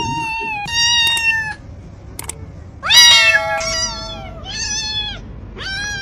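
Domestic cat meowing over and over: two meows, a short pause, then a louder run of four meows starting about three seconds in.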